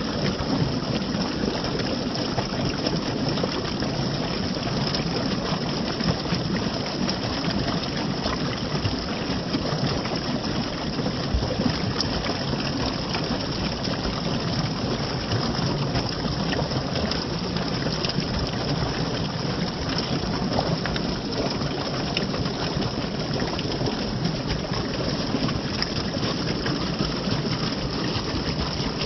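Running water flowing steadily, a constant rushing sound with no breaks.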